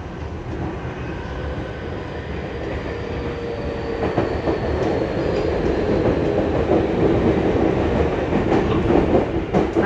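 Onboard running noise of a Yokohama Minatomirai Railway Y500-series electric train heard from inside the car: a steady rumble of wheels on rail that grows louder about four seconds in.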